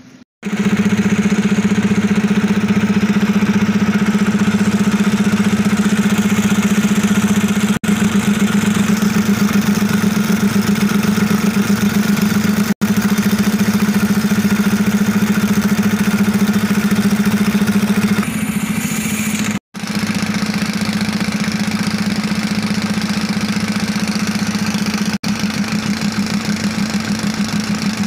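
Compressed-air rock drill hammering steadily into sandstone as it bores a blast hole, a loud, fast, even hammering with a few brief breaks.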